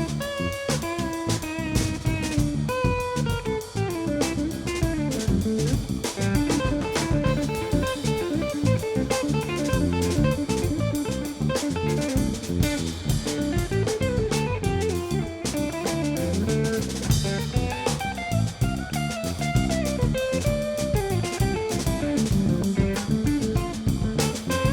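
A live band improvising: a guitar plays a winding melodic line over a busy drum kit and bass.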